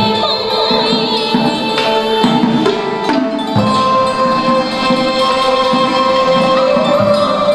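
Traditional Vietnamese music from the live puppet-show ensemble: held, wavering melody lines over occasional drum strokes.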